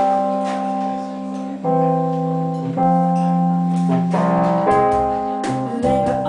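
Live small band playing an instrumental intro: sustained piano chords changing every second or two over an electric bass line, with a few light strikes on a cajon.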